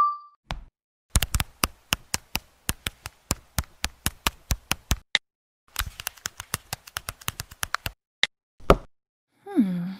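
Smartphone touchscreen keyboard clicking as a message is typed: a run of sharp, even clicks about three a second, a short pause, then a second, quicker run. Near the end come two brief, separate sounds.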